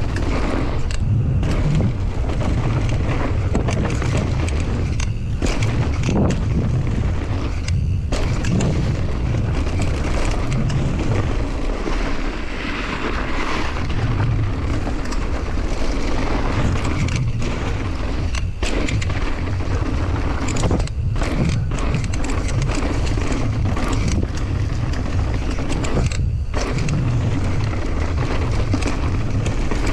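Mountain bike descending a fast, loose dirt trail: continuous wind buffeting on the microphone over the rumble of tyres rolling on dirt, with knocks from bumps.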